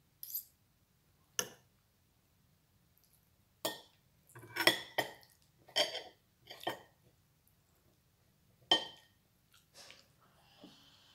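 Cutlery clinking against a plate while eating: a dozen or so sharp, irregular clinks, with a cluster about halfway through.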